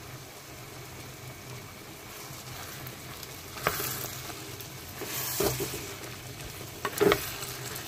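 Cubed eggplant and rohu fish roe frying in mustard oil with a steady sizzle, while a spatula stirs them through the pan. It scrapes sharply against the pan three times, at about four, five and a half, and seven seconds.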